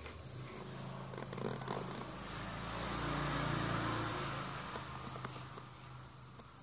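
A low engine hum, likely a motor vehicle passing. It swells to a peak about three seconds in and then fades away.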